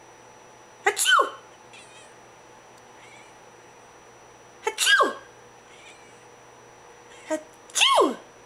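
A cat gives three loud meows that slide down in pitch, about a second in, at five seconds and near the end. Each comes right after a short, sharp sneeze from a person: the cat protesting at the sneezes.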